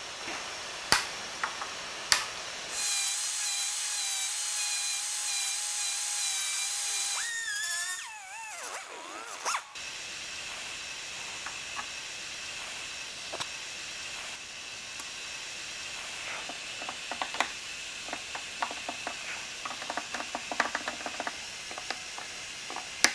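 Side cutters snip staple ends twice with sharp clicks. A die grinder with a tapered burr then whines at high speed for about five seconds, grinding the staple tips flush, and winds down with a wavering pitch. Light scattered clicks and scraping follow.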